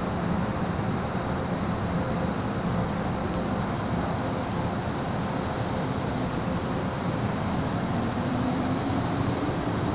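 MTR M-Train electric multiple unit standing at an underground platform behind the screen doors, giving a steady rumble. Near the end the traction motors' whine begins to rise as the train starts to pull away.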